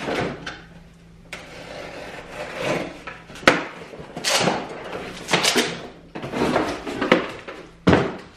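Packaging and a hard plastic tool case being handled on a workbench: scraping and rustling, with several sharp knocks, the sharpest about three and a half seconds in and another near the end.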